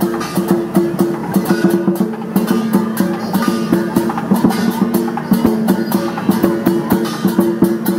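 Background music with plucked strings over a steady beat.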